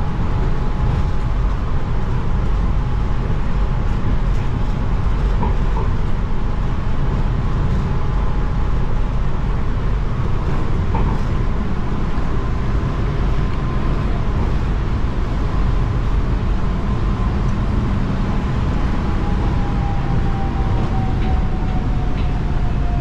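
In-cabin running noise of a Bangkok MRT Yellow Line monorail train (Alstom Innovia Monorail 300, rubber tyres on a concrete guideway beam): a steady low rumble with a thin motor whine and a couple of light clicks. The whine glides down in pitch near the end as the train slows.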